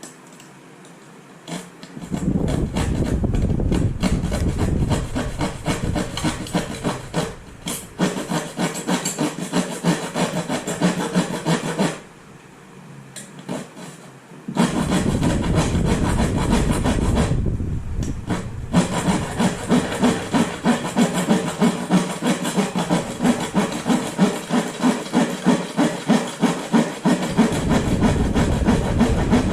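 Plywood being sawn, in repeated rough back-and-forth strokes, stopping briefly about halfway through before the sawing resumes.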